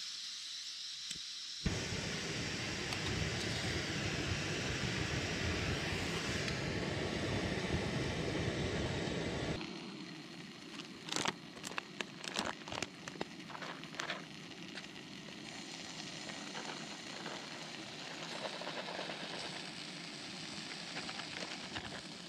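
Portable gas camping stove burning under a cooking pot with a steady hiss. A louder rushing noise fills the first several seconds, then a spoon clinks sharply against the pot several times, with a food packet rustling.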